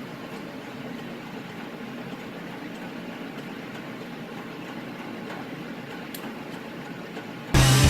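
Steady running noise of shop machinery, an even whirr with no strikes or changes. About seven and a half seconds in, loud heavy-metal guitar music cuts in abruptly.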